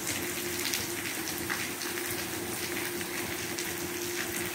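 Rain falling steadily, with many small drop hits on surfaces close by.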